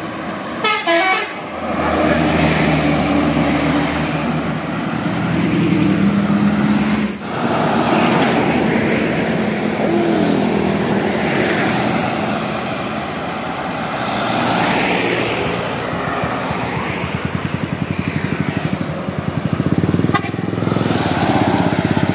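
Road traffic: vehicles running, with a horn tooting briefly about a second in.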